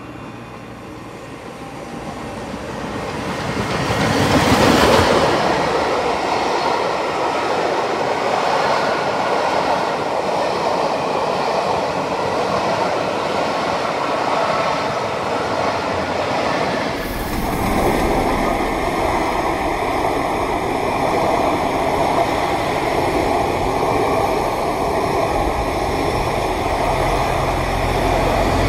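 Steam locomotive Scots Guardsman, an LMS Royal Scot class 4-6-0, passing slowly with a train of coaches. The noise swells to its loudest as the engine goes by about five seconds in, then the coaches roll past steadily. About two-thirds of the way through, the sound changes abruptly to a deeper rolling noise as the rest of the train runs on.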